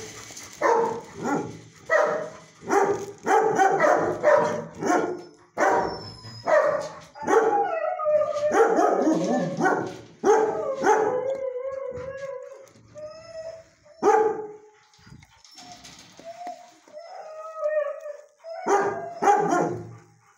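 Dogs barking in a shelter kennel: a quick run of short barks, then longer wavering howls and yips, with a few more barks near the end.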